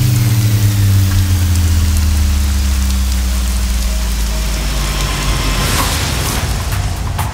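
Rain falling steadily, an even hiss, over a low hum that fades out over the first few seconds; a few sharp taps come near the end.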